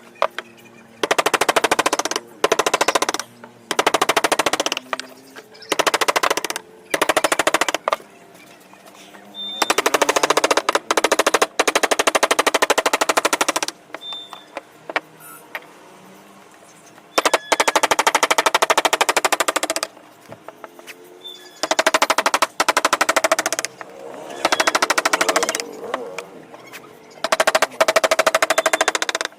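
Wood being carved with a chisel in rapid runs of fast strikes, each run lasting one to two seconds, with short pauses between them.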